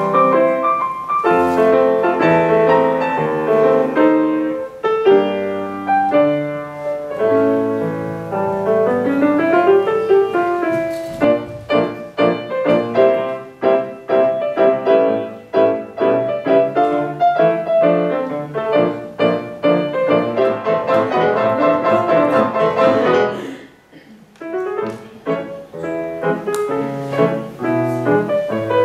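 Solo grand piano playing a classical-style piece, with fast running passages and chords. Near the end the music breaks off briefly and a different piece begins.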